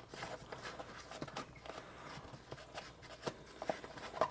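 Faint, irregular small clicks and rustles of a ripstop nylon MSR Dromedary water bag being handled while its cap is closed.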